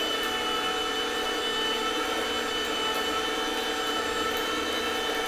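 Comfee juicer's electric motor running steadily as it crushes apples, a constant hum with a few high whining tones layered over it.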